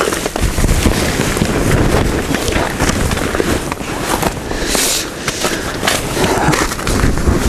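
Wind buffeting the microphone with a deep rumble and constant crackling, and a sharp rustling hiss about five seconds in.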